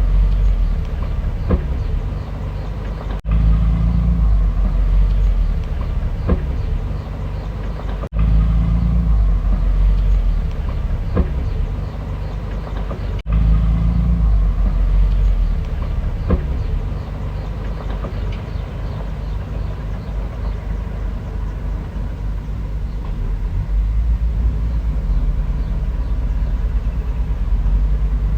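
Bulldozer's diesel engine running under load, a heavy low rumble, with faint clanking above it. The sound breaks off sharply three times in the first half.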